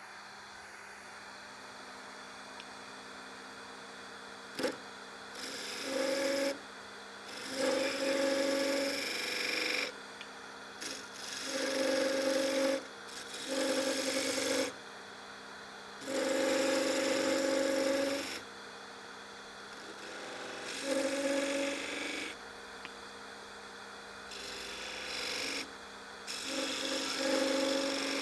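Wood lathe running steadily, and from about five seconds in, about eight short cuts of one to two seconds each. Each cut is a pitched scraping sound as a small chisel made from an Allen wrench cuts a detail groove into the spinning walnut handle.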